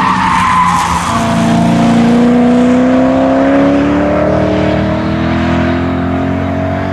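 A BMW M3's V8 engine accelerating hard along the track, its pitch rising slowly and steadily as it holds one long gear, after a brief tyre squeal in the first second.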